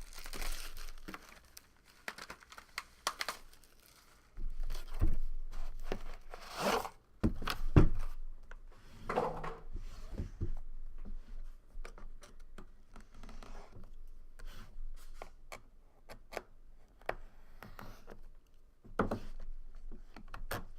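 Trading card packaging being torn and crinkled open by hand, with scattered clicks and light handling knocks.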